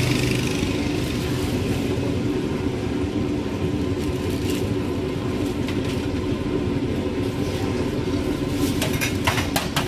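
Steady low rumble of street background noise with a steady hum in it. Near the end come a few quick metal clinks as a ladle knocks against soup bowls.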